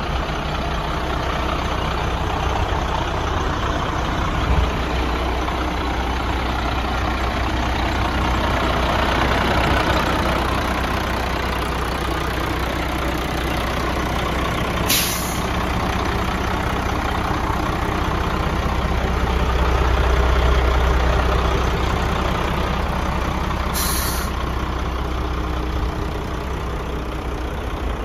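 The diesel engine of a 1995 Ford L8000 truck idling steadily. Two short hisses of air are heard, about halfway through and near the end.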